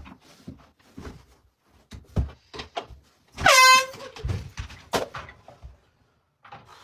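An air horn blasts once near the middle, a single blaring tone about half a second long that swoops up briefly as it starts. Scattered knocks and bumps come before and after it.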